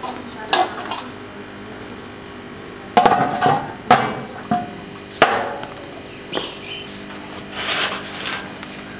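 Metal clanks and knocks from a steel tandoor, with its lid set over the mouth and a metal rod worked inside to free a baked naan. A handful of sharp strikes come between half a second and five seconds in, followed by softer scraping, over a steady low hum.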